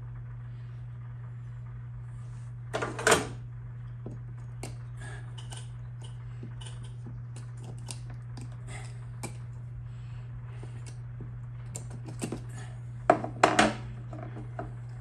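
Hands working a wire into a seat safety switch connector: scattered small clicks and rattles, with two louder bursts of clattering about three seconds in and near the end, over a steady low hum.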